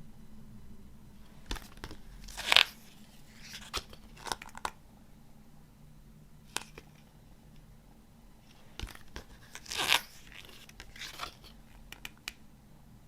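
A CD's packaging and contents being handled: short rustles and scrapes with scattered light clicks. The loudest rustle comes about two and a half seconds in, and a longer one near ten seconds.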